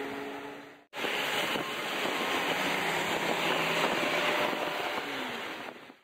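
Toyota Corolla on the move: a steady rush of road and wind noise, with a brief drop-out about a second in.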